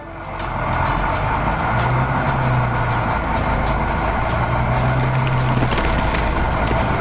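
Heavy construction vehicle engines working, a steady rushing noise with a low engine hum that swells three times.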